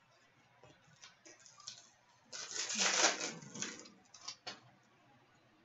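Trading cards and a crinkly plastic wrapper being handled: a few light clicks, then about a second and a half of rustling crinkle, then a couple more clicks near the end.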